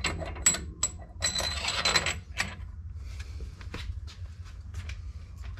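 Small steel parts clinking and rattling: the primary clutch's center bolt and its washers being handled and fitted by hand. A few sharp ringing clinks at the start, a jingling rattle lasting about a second, then lighter taps.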